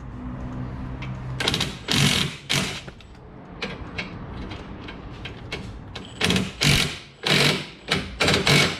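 Impact wrench run in short bursts, three in quick succession, then a pause, then five more.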